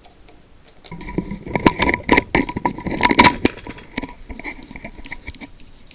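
Sharp clicks and knocks of toilet-tank flush-valve parts being handled as the gasket is fitted back on. They come thick and loud for a couple of seconds starting about a second in, then thin out to a few fainter clicks.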